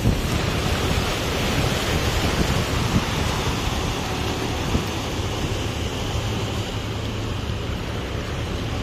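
Steady rush of river water and wind buffeting the microphone aboard a moving boat, over the low steady drone of its engine.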